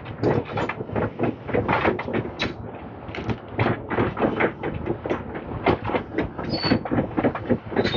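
Demolition excavator working with rubble: a rapid, irregular run of clanks and knocks of metal and broken concrete over its steady low engine.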